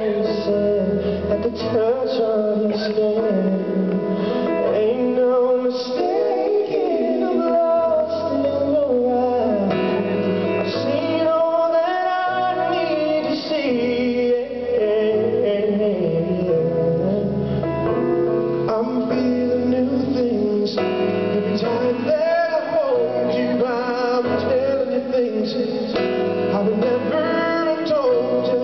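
Live R&B ballad: a man singing into a microphone, with the melody gliding and held, accompanied by a Yamaha grand piano. The music runs on without a break.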